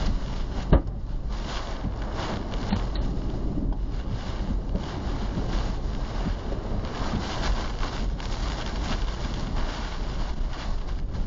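Storm wind and rain buffeting a car, heard from inside the cabin as a steady rushing noise over a low rumble, with scattered small hits and one sharp bang about a second in.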